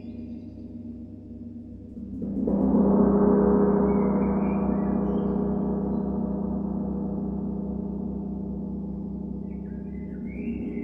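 Large gong swelling up about two seconds in and ringing on, fading slowly over a steady low drone.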